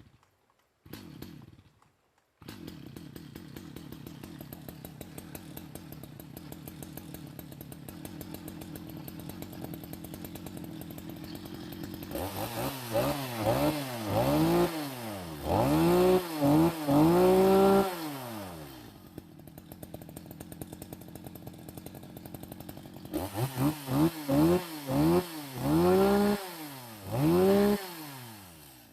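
Stihl MS 250 two-stroke chainsaw engine sputters briefly, then catches about two seconds in and idles steadily. It is then revved in a series of quick blips, drops back to idle, and is blipped again near the end.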